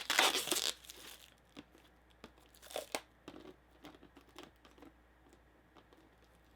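Packaging crinkling and rustling as it is handled: a loud rustle in the first second, then faint scattered rustles and light clicks.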